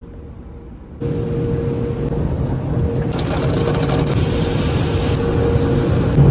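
Automatic tunnel car wash heard from inside the car's cabin: the wash machinery running with a steady hum and low rumble, with water spray and brushes on the windshield. The noise steps up about a second in, and a sharp hiss of spray joins about three seconds in for a couple of seconds.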